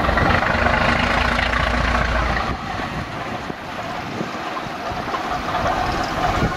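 Class V 65 diesel-hydraulic locomotive's engine running as the locomotive moves off along the track. A deep low rumble drops away about two and a half seconds in, and the engine sound gets a little quieter.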